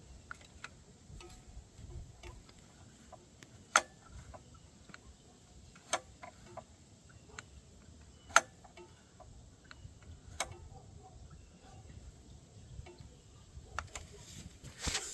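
Sharp, irregular metallic clicks and taps of hand tools and small parts being handled while a mini bike is taken apart, with four louder clicks about two seconds apart among fainter ticks. A short scraping rustle comes near the end.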